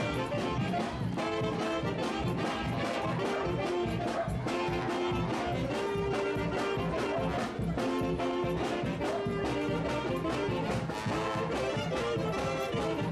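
Brass band music with held, changing brass notes over a steady drum beat.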